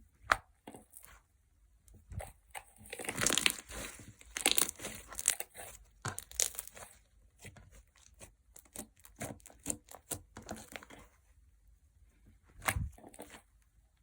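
Clear gel slime making watery sounds as it is played with: a run of quick wet clicks and pops, thickest about three to five seconds in, with a louder pop near the end.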